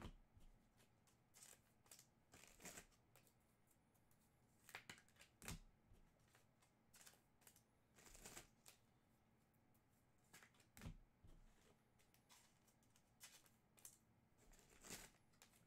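Faint, irregular rustles and soft clicks of Topps Finest trading cards being handled and sorted by hand, about a dozen short sounds with gaps between them.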